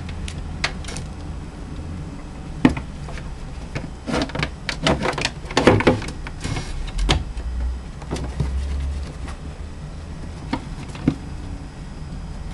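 Minks scrabbling and rummaging inside a wooden cupboard: scattered knocks and clatters, busiest in the middle, over a steady low hum.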